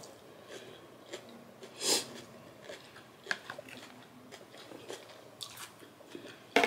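A person chewing a mouthful of salad close to the microphone: soft crunches and small clicks, with one louder sound about two seconds in.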